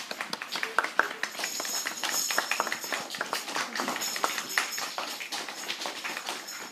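Small audience of children clapping, a dense crackle of many hands.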